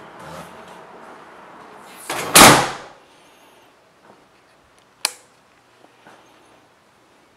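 Interior room door being handled as it is opened: one loud, brief rushing thump a little over two seconds in, then a single sharp click about five seconds in.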